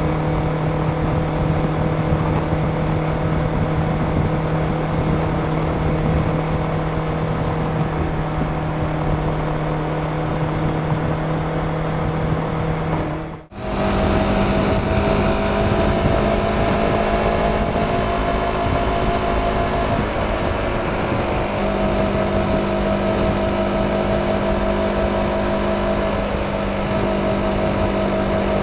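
Kawasaki Ninja 650's parallel-twin engine running at a steady cruising speed under the rush of wind and road noise. The sound drops out briefly about halfway through, then the engine holds a steady, slightly higher note at motorway speed.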